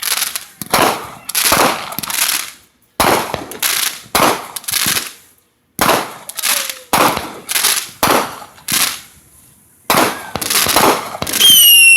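Fireworks going off in a quick, irregular string of loud bangs, each with a short fading tail. Near the end a whistling tone slides down in pitch.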